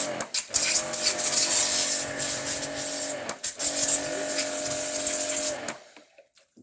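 An electric motor running steadily with a hiss. It cuts out briefly twice and stops near the end.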